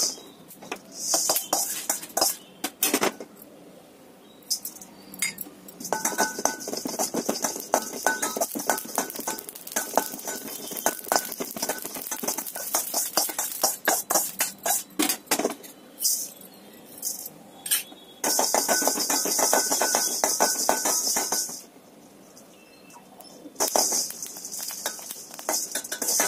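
A metal spoon stirring and scraping seeds and lentils around a stainless steel kadai as they dry-roast without oil: rapid clinks and rattling on the metal. The stirring pauses twice, a few seconds in and again near the end.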